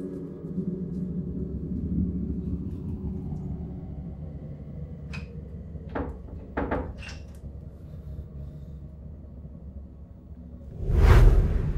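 Horror film sound design: a low, ominous drone with a few sharp knocks about halfway, then a loud swelling rumble near the end.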